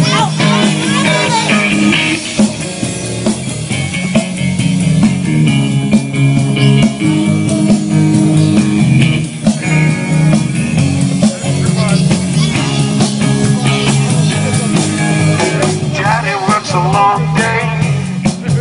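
Live rock band playing: electric guitar over bass and drums.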